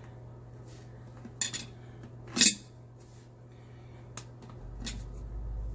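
Tongue-and-groove pliers clinking and clacking as they are set on and worked around a plastic sink drain nut. A few sharp clicks, the loudest about two and a half seconds in.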